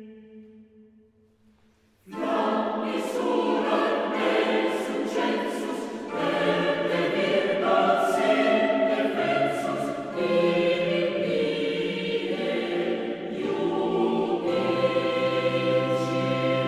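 A held sung note fades out, then after a short pause a choir enters abruptly about two seconds in, singing a sacred hymn setting in several parts. A steady low bass note joins near the end.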